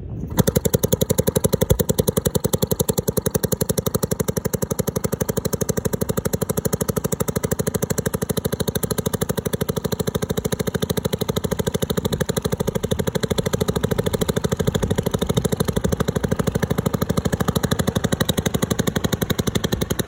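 1909 Waterman 'Coughing Sarah' single-cylinder outboard motor, hand-started at the flywheel, catching a fraction of a second in and then running steadily with rapid, even exhaust pops while driving the rowboat along.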